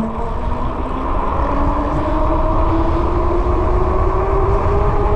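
Fat-tire electric bike rolling downhill at speed: a steady whine that rises slowly in pitch as the bike gains speed, over low wind rumble on the microphone.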